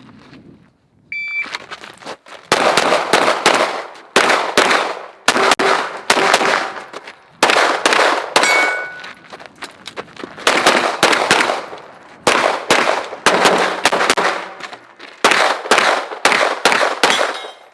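A shot-timer beep about a second in starts a string of 9mm Glock 17 pistol fire: shots in quick pairs and short strings with brief pauses between target arrays, running through to near the end.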